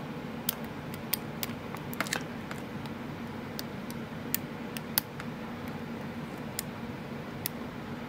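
Light, irregular clicks and ticks of a hook pick working the pin tumblers of a 40 mm brass U-Haul padlock held under tension, pins being lifted one at a time. A low steady hum sits underneath.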